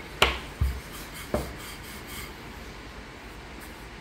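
Roti dough and a wooden rolling pin knocking three times on a kitchen countertop in the first second and a half, then faint rubbing as the dough is dusted and rolled.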